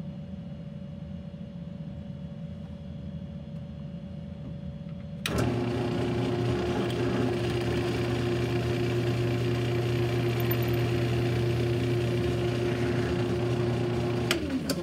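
Benchtop drill press switched on about five seconds in, its motor running at a steady pitch while the bit bores through two clamped wooden legs. It is switched off near the end with a click and spins down, falling in pitch.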